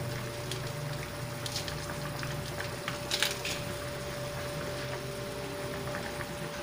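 Pot of pork broth boiling steadily on the stove, with a steady low hum underneath. A few light clicks and rustles come about a second and a half in and around three seconds in.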